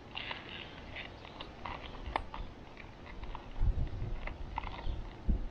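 Handling noise: scattered light clicks and taps, with a few dull low thumps about three and a half seconds in and again near the end.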